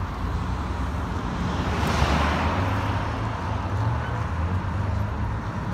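A car passing by: its tyre and engine noise swells to a peak about two seconds in and then fades, over a steady low rumble.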